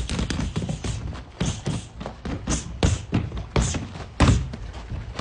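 A scuffle: a quick, irregular run of thumps and knocks, the hardest about four seconds in.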